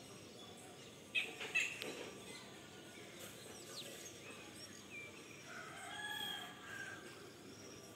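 A rooster crowing once, a single call of about a second and a half that rises and falls, about five and a half seconds in. A few sharp clicks a little over a second in are the loudest sounds.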